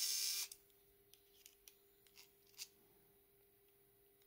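Electric precision screwdriver's small motor whirring as it backs out an M3 screw, cutting off about half a second in. A few light clicks follow.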